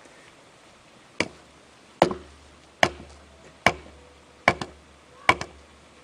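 Six hammer blows on wooden wedges, about one every 0.8 seconds, driving the wedges in to raise a cut-out block up tight against a redwood log on the sawmill bed.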